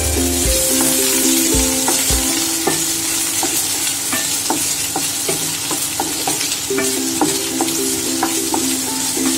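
Sliced onions sizzling in hot oil in a non-stick kadhai, stirred with a spatula that scrapes and clicks against the pan over and over.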